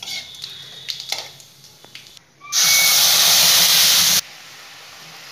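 Tomato-onion paste poured into hot tempering oil in a steel kadai, setting off a loud burst of sizzling hiss about two and a half seconds in that lasts about a second and a half and cuts off suddenly, dropping to a quieter steady sizzle. Before it, a few light clinks of utensils.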